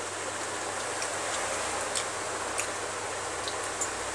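A person chewing food, with a few faint irregular mouth clicks over a steady hiss and low hum.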